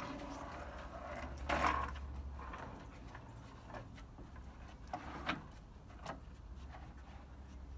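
A puppy's tie-out chain clinking and dragging over wooden deck boards as it walks, with a few sharp clicks around four to six seconds in, over a low steady rumble.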